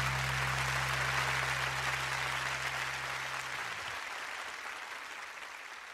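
Live concert audience applauding, fading away steadily. A low steady hum underneath cuts off about two-thirds of the way through.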